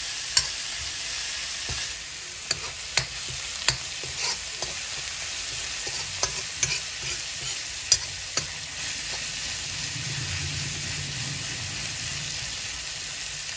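Chopped banana flower frying gently in oil in a metal kadai over a low flame, with a steady sizzle. A metal spoon stirring it scrapes and clinks against the pan several times, mostly in the first two-thirds.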